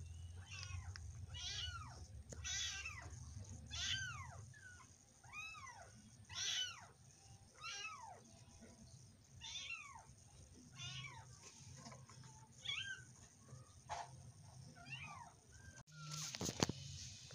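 Kitten mewing over and over: short high-pitched calls that rise and fall in pitch, about one a second. Near the end comes a brief clattering noise.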